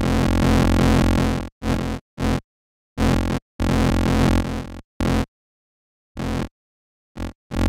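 u-he Bazille software synthesizer playing an FM lead: a broken phrase of short and longer buzzy notes that stop dead into silence between them, their overtones wavering under modulation.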